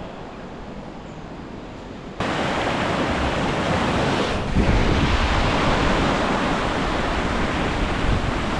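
Rushing floodwater of a swollen river, mixed with wind buffeting the microphone. The noise jumps abruptly louder about two seconds in.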